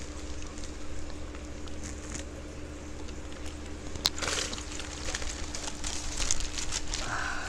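Water splashing and dripping with plastic crinkling as fish are scooped out of a plastic transport bag with a hand net, over a steady low hum. A sharp click about four seconds in.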